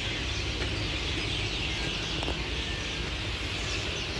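Steady outdoor background of distant highway traffic: a constant low rumble with a hiss on top.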